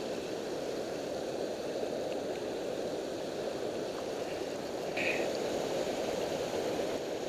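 Steady rush of water pouring over a low-head dam spillway.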